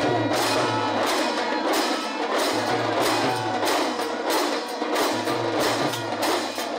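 A large group of damrus, small hourglass drums, played together in a fast, even rattling rhythm.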